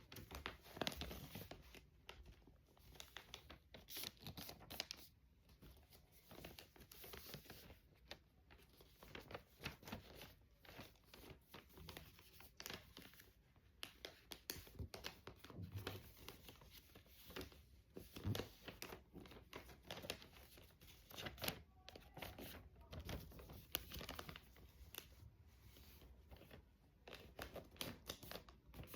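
A sheet of paper being folded and creased by hand into a paper airplane: irregular rustling and crinkling with short crackles.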